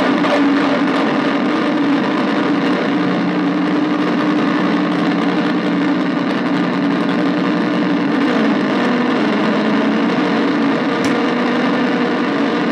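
Arturia MicroBrute analog synthesizer cross-patched with a Casper Electronics Nova Drone, holding a dense, buzzing noise drone through a small Peavey bass practice amp. Its strongest low pitch drops a little about two-thirds of the way through, and a single click sounds near the end.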